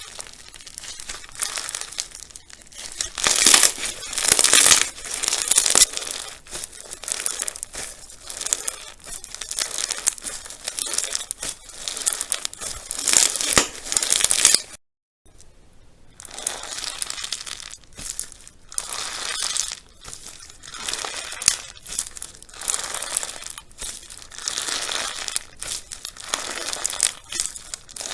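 Slime being squeezed, poked and stretched by hands, giving dense crackling and popping in irregular swells, with a brief dead cut about halfway.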